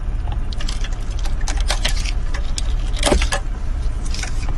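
Clicks and rattles of a car's plastic dash parts and wiring plugs being handled and pulled apart as a CD player is unplugged, with the strongest click a little after three seconds, over a steady low hum.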